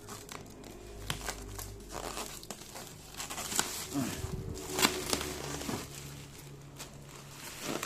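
Packaging of a desktop PC being handled during unboxing: crinkling and rustling with scattered irregular knocks and clicks.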